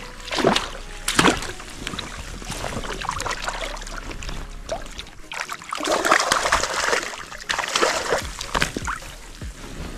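Hooked sea trout thrashing and splashing at the water's surface, then a landing net scooped through the water around it. Two sharp splashes come about half a second and a second in, followed by a longer stretch of splashing from about six to nine seconds.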